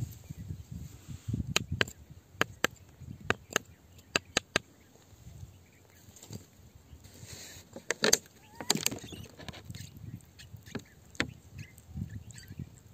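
Small hand tool digging into wet, stony soil: a run of sharp knocks as the blade strikes stones, then a louder burst of knocks and scraping about eight seconds in.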